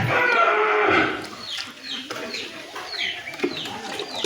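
Birds calling: a loud, harsh call in the first second, then a run of short, high chirps, each falling in pitch, about two a second.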